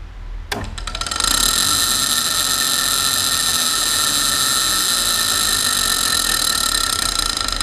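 Canedy-Otto drill press switched on about half a second in, its motor and drive coming up to speed within a second and then running with a steady high whine and grinding noise. The owner puts the grinding down to a hub-locking pin left engaged, which keeps the spindle from turning with the pulley.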